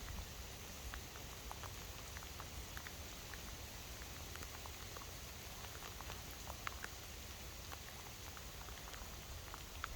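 Rain pattering: a steady hiss with scattered, irregular drop ticks, over a low rumble.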